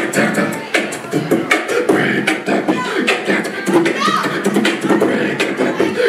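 Beatboxer performing into a handheld microphone: a steady beat of mouth-made percussion, with sharp hits about every three-quarters of a second and vocal sounds between them.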